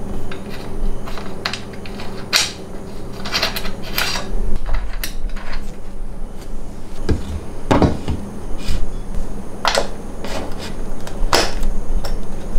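Metal fittings clicking, scraping and knocking against aluminium extrusion rails as brackets and bolts are fitted by hand, with a few heavier thuds about halfway through.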